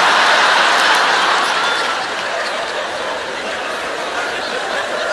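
Large studio audience laughing at a punchline, loudest in the first second, then easing a little and carrying on.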